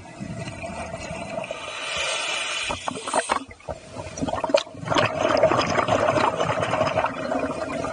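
A scuba diver breathing underwater through a regulator: rushing air and bubbling exhalations. There is a short lull with a few clicks about halfway through, then a longer, louder stretch of bubbling.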